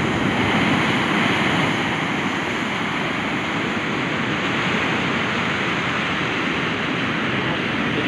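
Storm-driven sea waves breaking and foamy surf washing up a sandy beach: a continuous rushing wash, a little louder in the first second or so.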